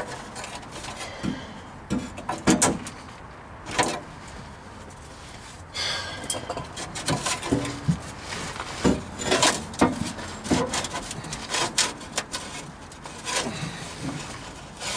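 Irregular metallic clanks, knocks and rattles of hand tools and steel exhaust pipe being handled under a car during an exhaust pipe replacement. There are several sharp knocks in the first few seconds, a quieter spell, then busier clanking with some ringing.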